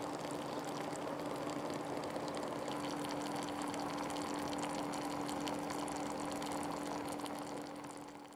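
Water boiling in a stainless steel pot heated by 12-volt PTC heating elements, a steady bubbling with a constant low hum under it. It fades out near the end.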